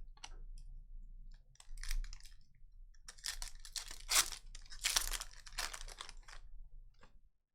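Trading-card pack wrappers being torn open and crinkled by hand: a few scattered crackles, then a dense run of loud rips and crinkles in the middle.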